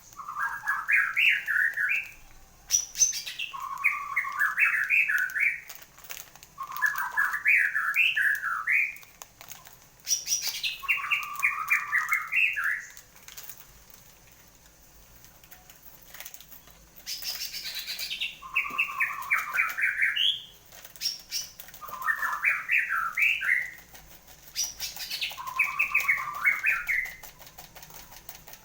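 A caged murai songbird singing prolifically after its moult: about eight short phrases of rapid chattering notes, each a couple of seconds long with a brief pause between, several opening with a high falling whistle.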